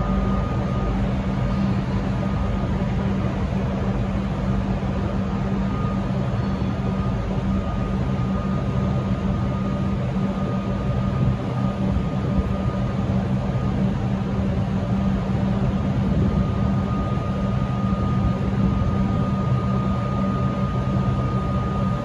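Steady drone of a V/Line VLocity diesel railcar's engines, with a thin high whine held on top.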